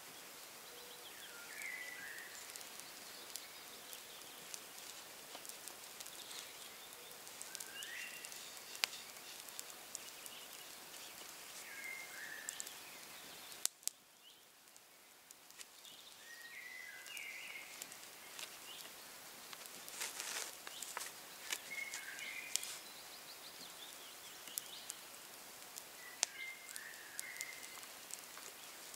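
Knife blade cutting and scraping into a wooden stick in short, irregular strokes. A songbird sings short phrases every few seconds in the background.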